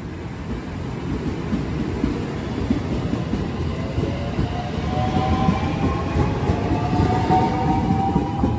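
IR Ishikawa Railway 521 series two-car electric train pulling away and passing close by, its wheels rumbling on the rails and growing louder. From about four seconds in, the inverter-driven traction motors add a whine that rises steadily in pitch as the train accelerates.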